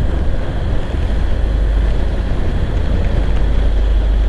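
Steady low rumble of wind buffeting the microphone, mixed with road and engine noise from a moving motorcycle.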